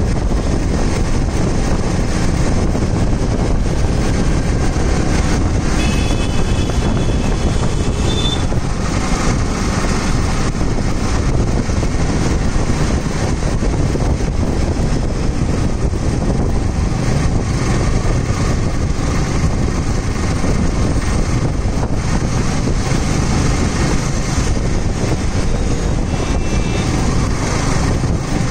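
Yamaha R15 V3's 155 cc single-cylinder engine cruising in sixth gear at around 45–60 km/h, under heavy wind rumble on the microphone and road noise.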